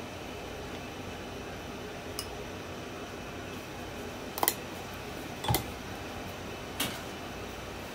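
Spoon clinking against a glass bowl while smoothing a thick berry smoothie: four short sharp clinks, a faint one and then three louder ones in the second half, over a steady room hiss.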